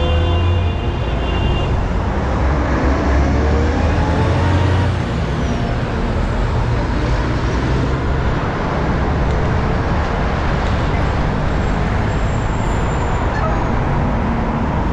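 Road traffic: vehicle engines running and passing in a steady rumble. A horn is still sounding at the start and stops a couple of seconds in. A few seconds in, one vehicle accelerates with a rising engine note.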